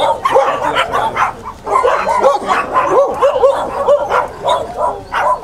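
Dog barking and yipping in quick succession, mixed with short whines that rise and fall in pitch, several each second.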